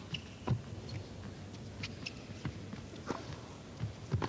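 Tennis rally: the ball is struck by racquets and bounces on the court, giving a few sharp knocks spaced about half a second to a second apart.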